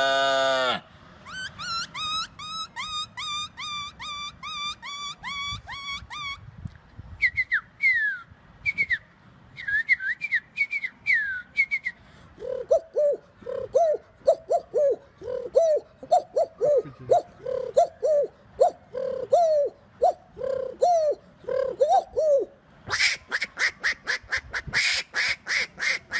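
A person imitating bird calls by voice. First comes a run of short repeated high chirps, then a set of falling chirps, then a long fast series of lower calls, and near the end a fuller, buzzier call.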